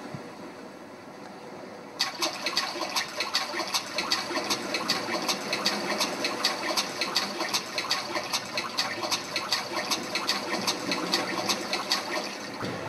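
Splashing water played as a sound effect: a dense, irregular run of splashes that starts suddenly about two seconds in and stops shortly before the end.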